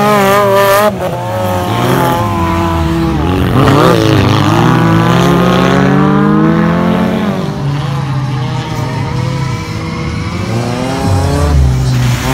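4x4 off-road race car engines revving under load, pitch rising and falling as the throttle changes, loudest in the first second and again from about two to seven seconds in.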